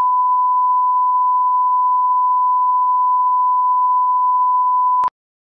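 Colour-bars test tone: a steady 1 kHz sine-wave line-up tone that holds one pitch and cuts off suddenly with a click near the end.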